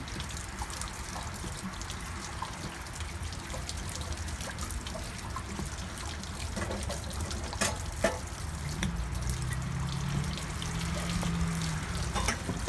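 Water running out of the open drain and anode-rod port of an RV's 6-gallon hot water tank as the tank drains for winterizing, a steady trickling flow with a couple of light knocks.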